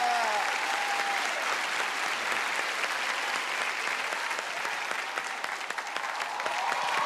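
Studio audience applauding steadily, with a voice heard briefly near the start.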